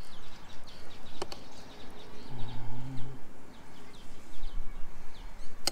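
Small birds chirping in the background, with a light click about a second in and another at the end, likely a metal spoon touching a ceramic bowl. A short low hum sounds for about a second, starting about two and a half seconds in.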